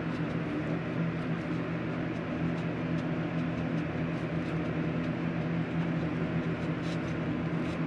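A steady low mechanical hum with a faint hiss, unchanging throughout, with a few faint light clicks.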